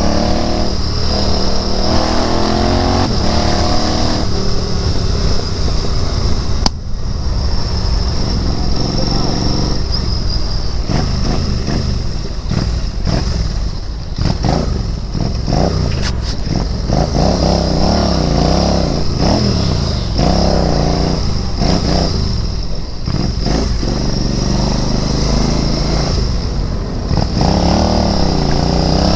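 Royal Enfield Interceptor 650's parallel-twin engine running under way, its note rising and falling again and again as the throttle is opened and closed through the gears.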